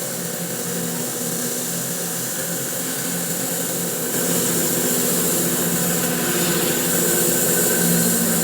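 Electric bandsaw mill running steadily with its tungsten carbide tipped blade cutting through a spalted maple log: a steady motor hum under a strong hiss, with the dust collector running. It gets somewhat louder about halfway through.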